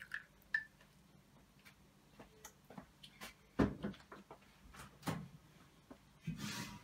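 Kitchenware being handled: a few scattered knocks and clinks, the loudest about three and a half seconds in, and a short rustle near the end.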